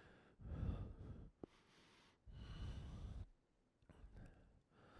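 Faint, slow breathing: two long breaths of about a second each, then a shorter, softer one near the end.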